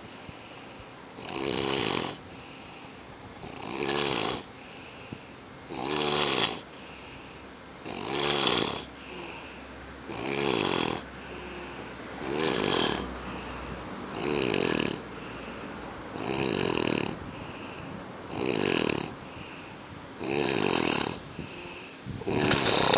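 Snoring on a bench: regular snores about every two seconds, each a rattling, fluttering burst under a second long.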